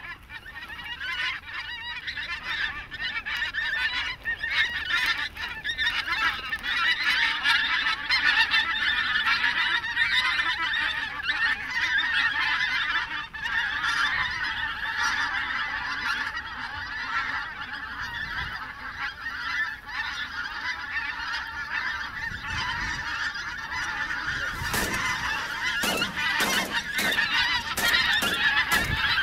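A large flock of wild geese honking continuously as it flies overhead, many overlapping calls at once. A few short, sharp knocks come near the end.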